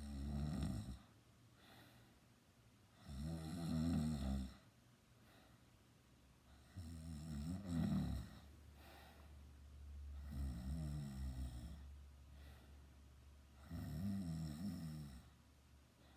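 A teenager snoring loudly in sleep: five long snores about every three seconds, each lasting one to two seconds, with quiet breathing between them.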